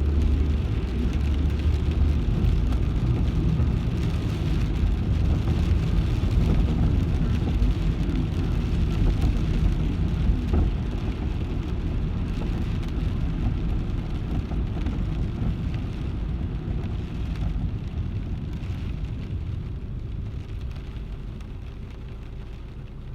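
Rain on a moving car heard from inside the cabin, over the steady low rumble of road and engine noise, gradually getting quieter over the second half.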